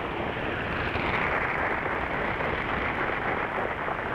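Steady shortwave static and hiss from an Icom IC-R70 receiver tuned to 17705 kHz, with no programme audio standing out: the Radio Habana Cuba broadcast is buried in the noise at this moment.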